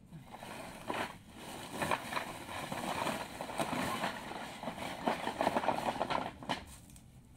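Wild-stone pieces clattering and knocking against each other as they slide out of a tipped-up woven plastic sack onto stone paving, with the rustle of the sack. It stops shortly before the end.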